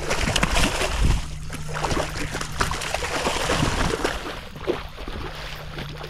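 Water splashing and sloshing as a hooked redfish thrashes at the surface close to a kayak, in irregular splashes that are loudest about a second in.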